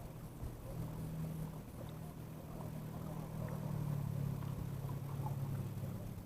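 Low, steady hum of a motorboat engine running, growing slightly louder about three seconds in.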